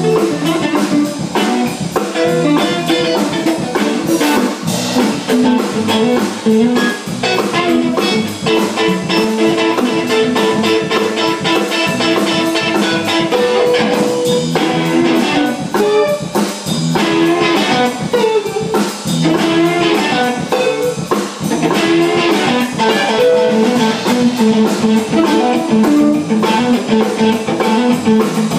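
A live band jamming: guitar playing over a drum kit keeping a steady beat.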